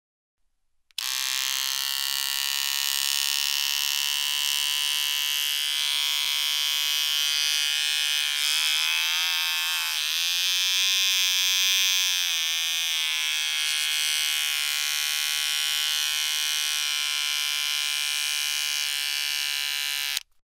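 Electric beard trimmer buzzing steadily after switching on about a second in. Its pitch dips and wavers for a few seconds in the middle, then steadies, and it cuts off suddenly near the end.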